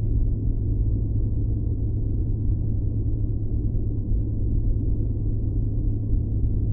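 Steady, deep ambient noise of a continuous 'white noise' relaxation track. It is a low, even rumble with nothing high-pitched and no changes in level.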